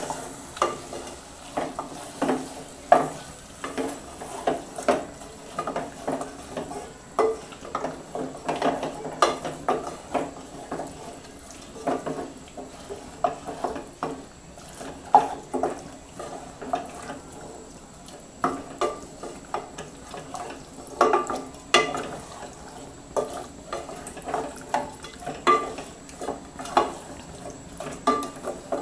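Wooden spatula stirring chicken pieces through thick spice paste in a metal pot, with irregular scrapes and knocks against the pot about once or twice a second, over a faint frying sizzle as the chicken is browned in the masala.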